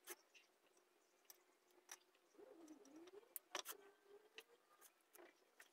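Near silence, with faint scattered clicks and ticks from hands bending copper training wire onto a bonsai's branches, over a faint wavering hum.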